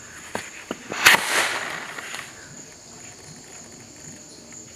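Firework rocket strapped to a toy truck igniting: a few sharp crackles from the fuse, then a loud hissing burst about a second in that fades over about a second as the rocket burns. Insects buzz steadily in the background.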